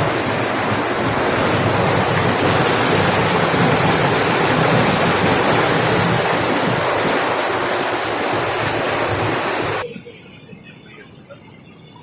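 Loud, steady rushing of water and wind on a motorboat under way, which drops suddenly to a much quieter hiss near the end.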